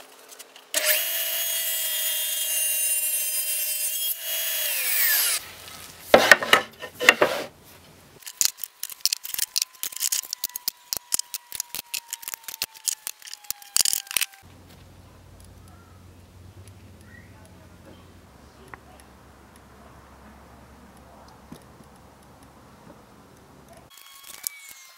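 Old Sears Craftsman table saw running, then spinning down about five seconds in, its pitch falling as the blade slows. Then comes a spell of knocks and clatter as wood strips are handled, and a faint low hum.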